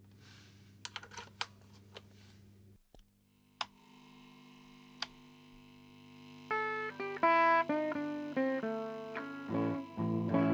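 A Fender guitar amplifier hums steadily, with a few sharp crackles and clicks in the first seconds. From about six and a half seconds an electric guitar played through it picks out a run of single notes that ring on.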